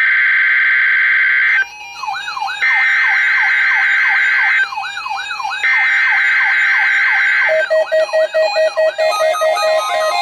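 NOAA Weather Radio SAME digital alert header: the data burst buzzes three times, with about a second's pause between bursts, marking the start of the Required Weekly Test. From about two seconds in, a siren-like tone sweeps up and down about four times a second over it, and a fast pulsing beep joins near the end.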